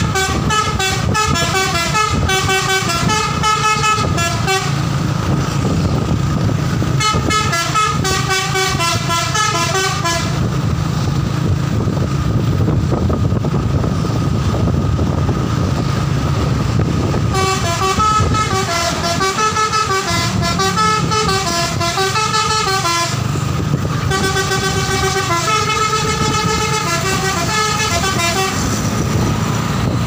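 Tour bus's telolet musical horn playing a multi-note tune, in four phrases of several seconds each with pauses between them. Underneath runs a steady low rumble of engine and road noise.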